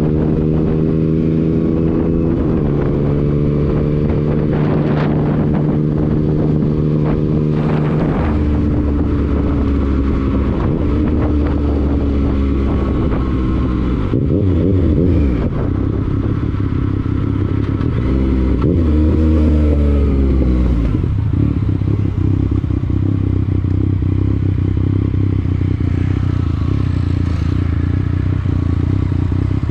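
Motorcycle being ridden, its engine and exhaust running at a loud, steady level, the engine note sliding down and changing pitch several times as the rider shifts and eases on and off the throttle.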